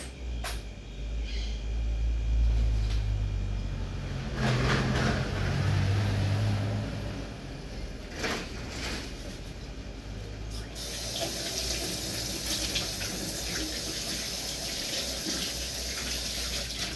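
A low rumble with a few knocks, then, about two-thirds of the way in, water starts running steadily from a tap.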